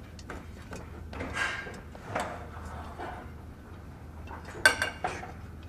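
Quiet commercial-kitchen background: a steady low hum with a few soft handling sounds, and a short clatter about four and a half seconds in.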